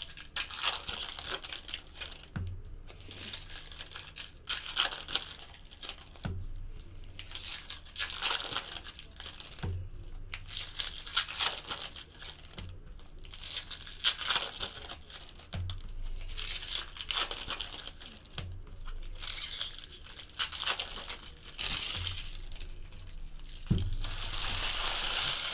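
Plastic trading-card pack wrappers crinkling and tearing open while cards are riffled through by hand, with a soft low thud every few seconds.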